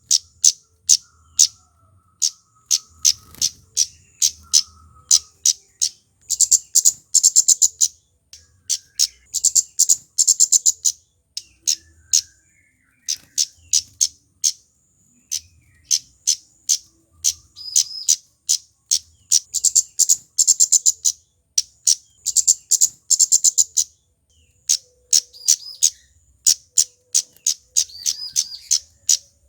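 Male kemade, a small Javanese flowerpecker, calling: long series of sharp, high 'cit' chips, now spaced, now packed into rapid runs, with brief pauses between the runs.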